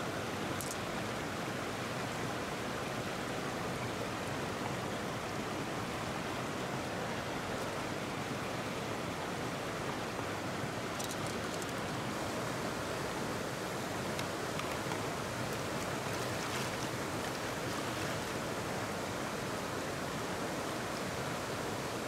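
Steady rush of flowing river water, with a few faint clicks a little past the middle.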